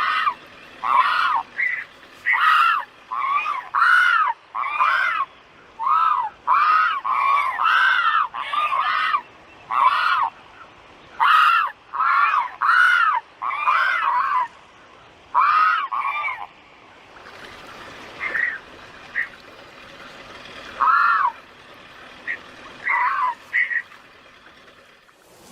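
A large waterbird calling in a rapid series of short calls that rise and fall in pitch, about two a second, then slowing to a few scattered calls over a quieter background in the last third.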